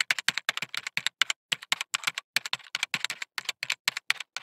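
Typing sound effect: rapid, uneven keyboard-like clicks, several a second, with no voice.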